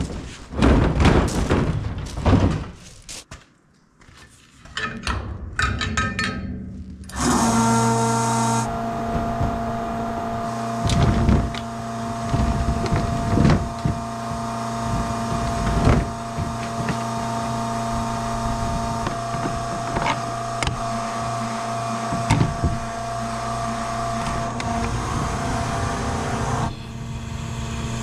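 A few irregular thunks and knocks, then about seven seconds in a motor starts and runs with a steady, even hum, with scattered knocks and clicks over it.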